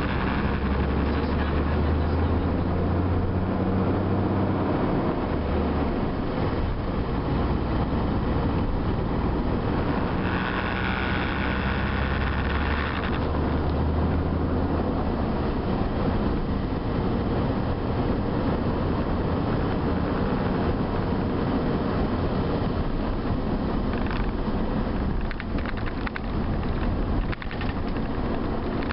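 Bus engine and road noise heard from inside the bus while it drives. The low engine note shifts in pitch several times in the first half, and a higher-pitched sound joins it for a few seconds about a third of the way in.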